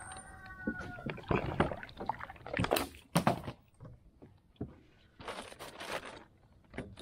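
Water splashing and plastic knocks and rustles at the side of a sit-on-top kayak as a floating plastic soda bottle is pulled out of the water and handled, in irregular sharp bursts that are loudest a little before and after the middle.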